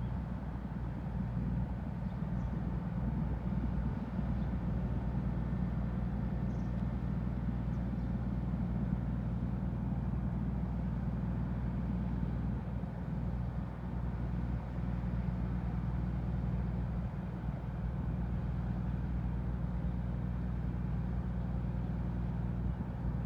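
Steady low drone of the car ferry Kogane Maru's engines as the ship gets under way, an even hum with faint higher tones above it.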